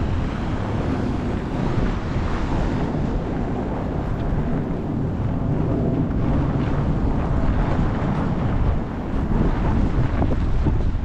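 Strong wind from a snowstorm blowing across the microphone: a steady, loud, unbroken rumble of noise.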